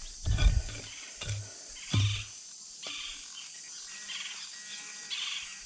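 A digging tool striking hard, compacted soil three times in the first two seconds or so. Faint chirping carries on in the background.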